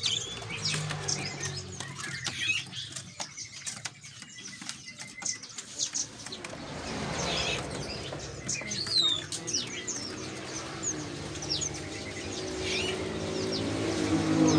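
Many small caged birds chirping in short, overlapping calls, with wing flutters and clicks among them.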